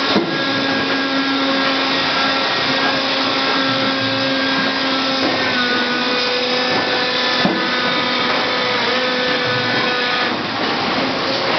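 Steady whir and hum of running plastics processing machinery on a factory floor, with several steady tones that drift slightly in pitch. Two sharp knocks, one near the start and one about two-thirds of the way through.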